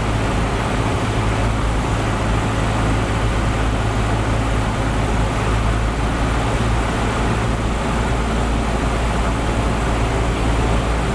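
Cessna 172's piston engine and propeller running in a steady drone with airflow noise, during the approach and landing.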